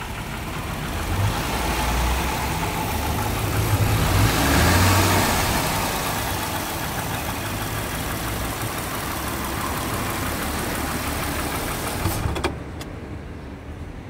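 2014 Jaguar XJL's 3.0-litre supercharged V6 running with the bonnet open, revved once up to a peak about five seconds in and easing back down, with a rapid ticking rattle under it that the owner suspects is a hydraulic lifter tick or a bad supercharger coupler. The engine sound drops away sharply near the end.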